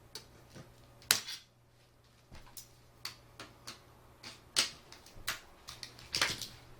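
Irregular sharp plastic clicks and snaps, about a dozen, as an LCD monitor's casing and clips are pried apart; the loudest come about a second in, midway and near the end.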